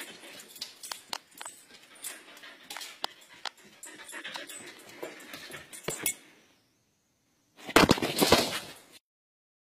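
A husky making dog noises amid many sharp clicks and scuffles. A short, louder noisy burst comes about eight seconds in and cuts off suddenly.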